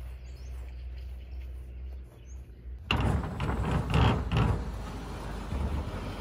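Large sliding barn door being rolled open by hand: a sudden rumbling, rattling roll starts about three seconds in, loudest for the first second and a half, then goes on more quietly as the door keeps moving. Before it there is only a steady low hum.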